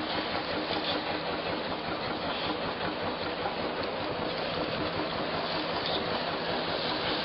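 Steady rushing noise of wind and sea with a boat's engine running underneath, unbroken throughout.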